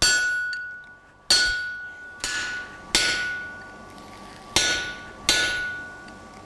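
Hand hammer striking a hot chisel six times, about a second apart, as it splits a red-hot square steel bar lengthwise on an anvil. Each blow is followed by a lingering metallic ring.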